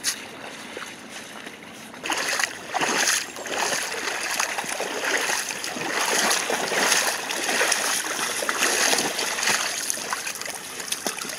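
Golden retrievers paddling and wading through a shallow river, the water splashing and sloshing around them. It grows louder and busier about two seconds in.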